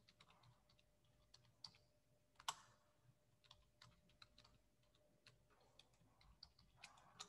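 Near silence with faint, irregular clicks, the sharpest about two and a half seconds in, over a faint steady hum.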